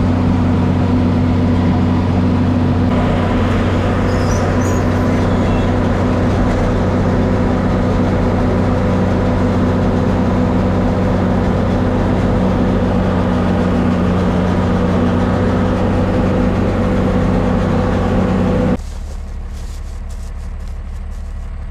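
Farm tractor engine running steadily under load. Near the end the sound drops suddenly to a quieter low hum.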